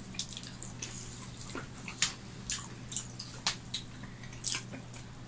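Wet, smacking eating sounds: two people chewing mouthfuls of rice and curry and working the rice with their fingers on steel plates, a string of short clicky smacks with the sharpest about two seconds in. A steady low hum runs underneath.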